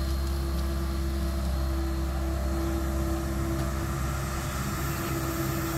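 Tracked excavator's diesel engine running steadily, with a steady whining tone over its low drone.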